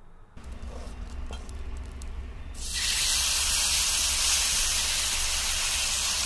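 Thick batter ladled onto a hot iron tawa, sizzling. After a few faint clicks, the hiss starts suddenly about two and a half seconds in and then holds steady and loud.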